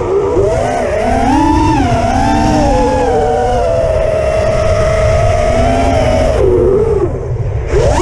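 Six-inch FPV quadcopter's brushless motors and propellers whining, the pitch rising and falling with throttle. The pitch holds fairly steady through the middle, drops off about six and a half seconds in, then surges sharply near the end. Wind rumbles on the microphone throughout.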